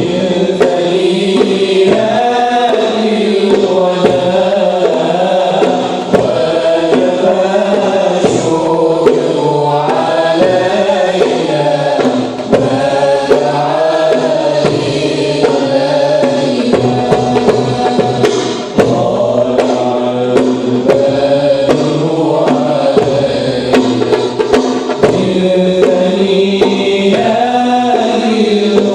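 A vocal group singing a chanted devotional song in several voices, with sharp percussion taps throughout.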